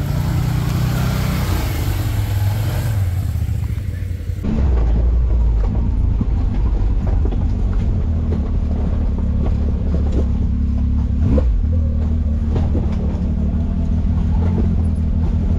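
Side-by-side UTV engine running at low speed while crawling over a rocky, muddy trail, with scattered knocks from rocks and suspension. About four seconds in the sound switches abruptly to a louder, deeper steady engine drone.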